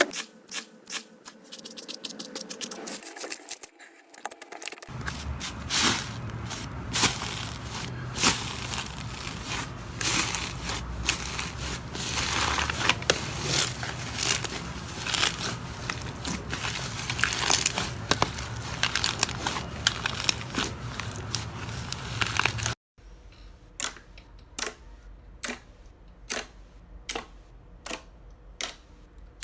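Slime being squeezed and pressed by hand, crackling and clicking. After an abrupt cut about three-quarters through, a regular run of sharp pops, about one and a half a second.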